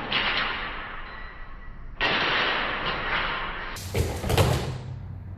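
Swishing and rustling of two people moving quickly through a spinning sword draw, then a thud of feet landing on the floor about four seconds in.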